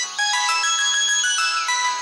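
Mobile phone ringtone playing: an electronic melody of quick stepping notes, with a brief break just after it starts.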